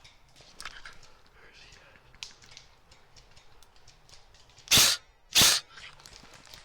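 Airsoft gun firing two short bursts, about half a second apart, near the end, loud and sharp at the gun-mounted camera. A few faint clicks and rustles come before them.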